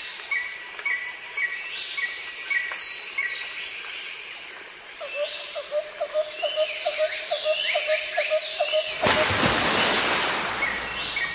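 Outdoor birdsong ambience: several birds call with repeated short chirps and falling whistles. A run of rapid lower notes, about four a second, comes midway, and a swell of rushing noise rises near the end.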